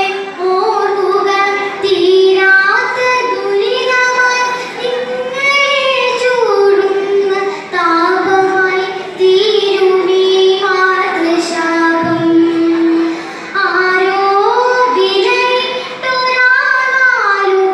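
A child's solo voice reciting a poem in a sung, melodic chant, holding long notes and gliding between them, with short pauses for breath.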